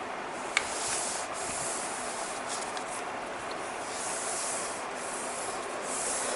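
A sheet of paper being rubbed and pressed flat by hands to crease a fold, with soft swishes of palms sliding over the paper and a single light tick about half a second in.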